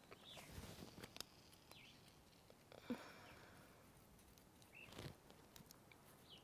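Near silence: faint outdoor quiet with soft scattered handling noises and a few faint short chirps.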